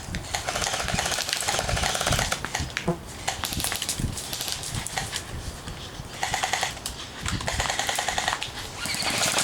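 Airsoft guns firing full-auto, a fast mechanical rattle of shots. One long burst comes near the start, then several shorter bursts in the second half.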